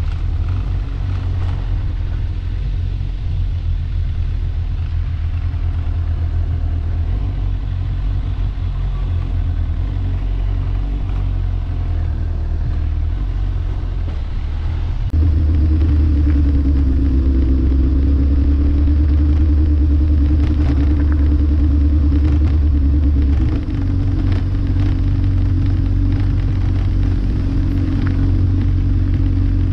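A road vehicle on the move: a steady low engine and road rumble. About halfway through it steps up louder with a steady droning hum added, then eases slightly a few seconds before the end.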